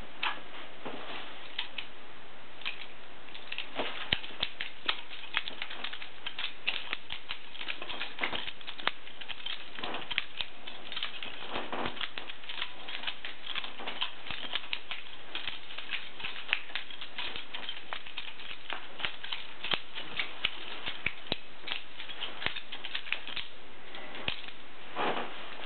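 Butterfly knife (balisong) being flipped: its handles clack against each other in an irregular run of sharp clicks, several a second.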